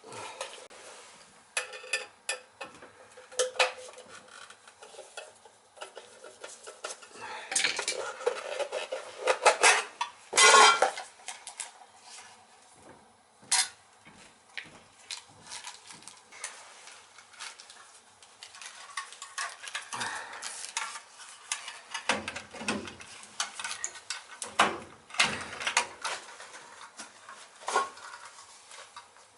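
Irregular metallic clinks, clicks and rattles of hand tools and small metal parts being handled, with a louder cluster of clattering about a third of the way in.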